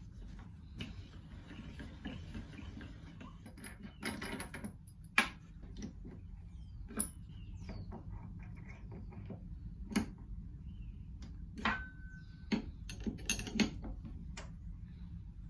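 Metal tools being handled on a router table while a router bit is fitted into the collet: a wrench and steel parts clink, tap and click at uneven intervals, with a short squeak just before the twelfth second, over a low steady hum.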